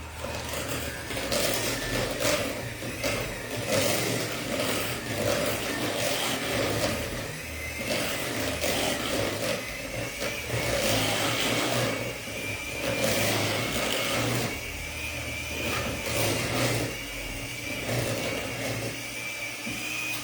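Electric hand mixer running in a pot of cooked potatoes, its motor whining steadily with the beaters knocking and churning through the mash; it switches off abruptly at the end.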